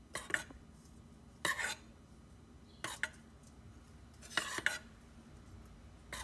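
A metal spoon scraping and clinking against the metal insert of an electric chocolate-melting pot while spooning melted chocolate over a banana on a stick, about every second and a half.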